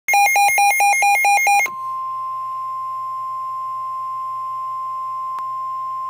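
NOAA weather radio sounding its warning alert: a fast two-pitch electronic beep alternating about six times a second for a second and a half. Then comes a single steady tone near 1 kHz, the National Weather Service 1050 Hz warning alarm tone that signals a warning broadcast. A faint click comes about five seconds in.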